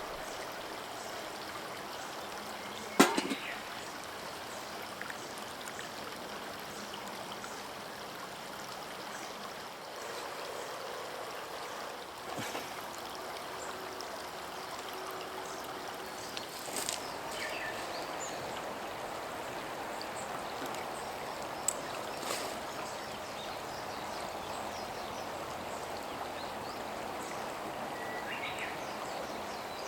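Steady rushing of water, with one sharp knock about three seconds in and a few fainter clicks later.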